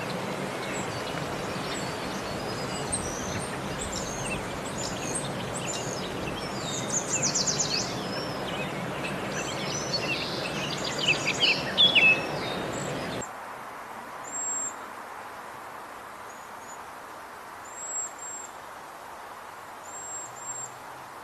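For about the first thirteen seconds, a busy mix of songbird song with quick trills and falling notes over a steady hiss. Then, after a sudden cut to a quieter background, waxwings give short, very high, thin calls every second or two.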